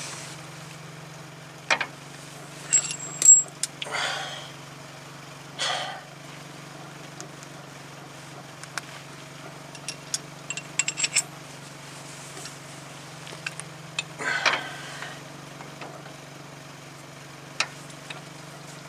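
Steel tool parts clinking and clanking as a C-frame ball joint press and its adapter cups are handled and fitted together: several sharp clinks, the loudest about three seconds in and a quick cluster around ten to eleven seconds, with a few short rustles between. A steady low hum runs underneath.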